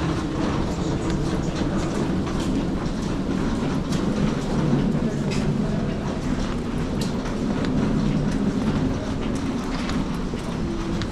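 Subway train rumbling and clattering on a nearby track, heard through a tiled underground passage, with scattered footsteps clicking over the steady rumble.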